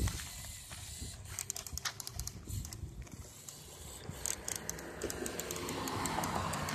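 Lego Technic car's XL electric motor running as the car crawls over sandy gravel, with a faint steady hum and many light, sharp clicks from its plastic gears and wheels. A hissing whir builds over the last two seconds.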